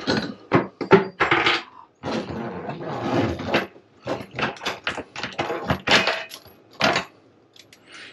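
Old galley faucet pulled up out of its countertop hole, its braided metal supply hoses scraping and knocking against the edge of the hole in a rapid run of rubs and clatters.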